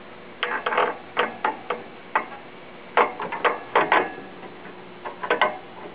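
Irregular sharp clicks and knocks in small clusters as cable connectors and a circuit board are handled and plugged back into an EDM power module.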